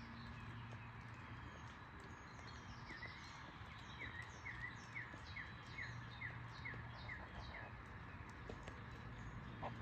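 Songbirds singing: a run of about a dozen quick down-slurred notes, roughly two a second, in the middle, with other high chirps, over a faint steady background.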